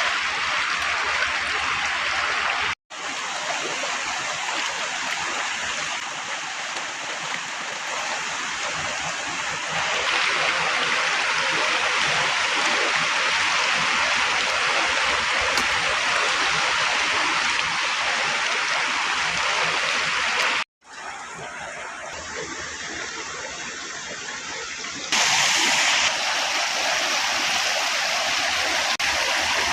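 River water rushing steadily. The sound cuts out briefly twice and shifts in level a few times, as separate clips follow one another.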